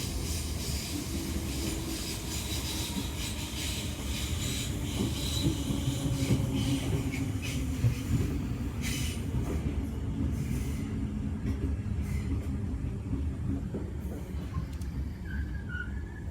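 Merseyrail electric train running on the rails: a steady low rumble of wheels with a high hiss that dies away about ten seconds in, and a couple of sharp clicks shortly before.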